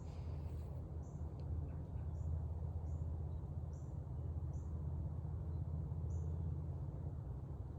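Outdoor forest ambience: a steady low rumble with a short, high-pitched chirp repeating at an even pace, a little more than once a second, from a small creature calling in the woods.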